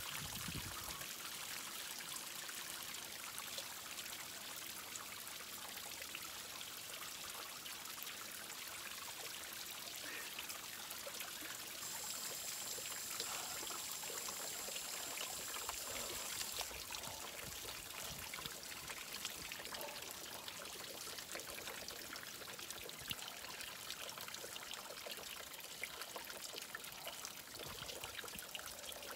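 Outdoor shower running, water spraying and splattering in a steady hiss.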